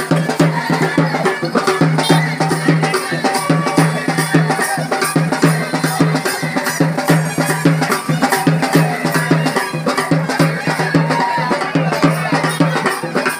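Fast, continuous traditional Tamil festival drumming in a steady rhythm, with a low held drone under the beats and crowd voices in the background.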